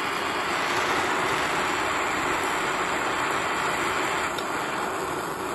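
Steady hiss of a gas flame heating a steel bumper bolt toward a glow for heat bluing.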